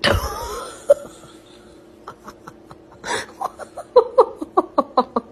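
A person laughing in short bursts that speed up into a rapid run of 'ha-ha' pulses, about four or five a second, in the second half. A loud sudden burst of sound comes right at the start.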